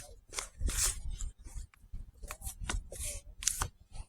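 A quick irregular run of short scratchy rustles, like something being handled close to the microphone, over a low rumble.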